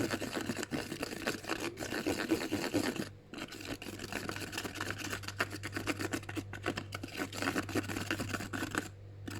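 A utensil stirring and scraping a thick shampoo-and-toothpaste mixture in a bowl, a continuous scratchy, clicky scraping that pauses briefly about three seconds in. A steady low electrical hum runs underneath.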